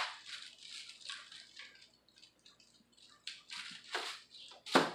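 Plastic sheeting crinkling and rustling under working hands while scissors cut double-sided adhesive tape, with sharp snips about four seconds in and near the end, the second the loudest.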